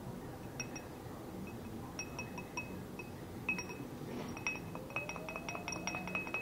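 A drinking glass clinking as an opened plastic glow stick is tapped and knocked against it to empty the liquid into it. Light ringing clinks, scattered at first, then a quick run of them in the second half.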